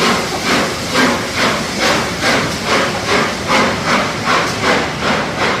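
Exhaust of the three-cylinder Peppercorn A1 steam locomotive 60163 Tornado chuffing steadily, about two and a half beats a second, as it pulls away, with a hiss of steam.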